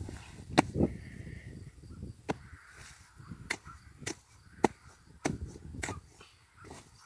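Machete hacking into a large mushroom: about seven sharp cutting strikes spaced roughly half a second to a second and a half apart, the flesh sounding like foam as it is cut open.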